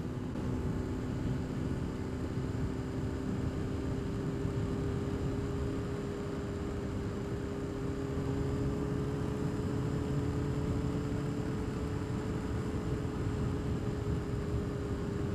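Honda CBR600RR inline-four engine running at a steady cruising speed, a nearly constant drone with its exhaust muffled by the stock baffle, under a steady rush of wind and road noise.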